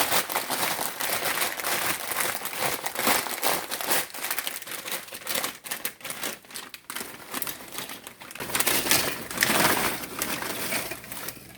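Pork rinds being crushed by hand inside their plastic bag: irregular crinkling of the bag mixed with crackling crunches of the rinds, easing off near the end.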